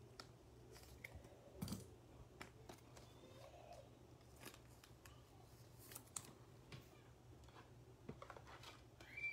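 Faint snips of scissors and scattered clicks and rustles of trading cards and plastic being handled on a tabletop, with a brief high squeak near the end.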